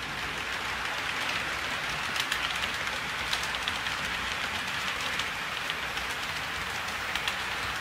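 HO scale model freight train rolling past on sectional track: a steady rolling hiss of small metal wheels on the rails, with light, irregular clicks as the wheels cross the rail joints.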